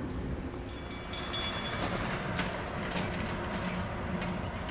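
Semi truck rolling across a railroad grade crossing, its engine running over a steady rumble, with faint ticks repeating about every half second in the second half.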